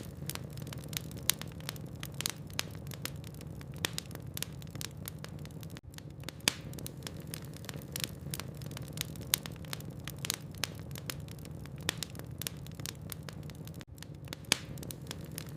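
Logs burning in a fireplace: irregular sharp crackles and pops over a steady low rumble, briefly cutting out twice.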